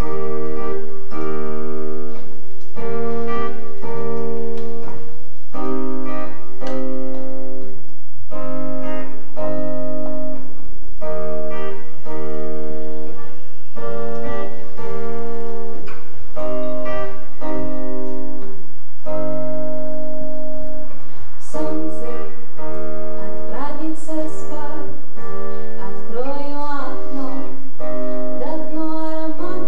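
Piano music playing a steady pattern of repeated chords, with a singing voice coming in about two-thirds of the way through.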